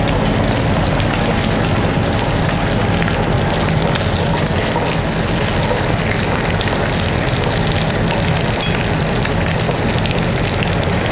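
Pieces of milk-fed lamb roasting in foaming butter in a cast-iron skillet, sizzling and crackling steadily as the butter is spooned over them.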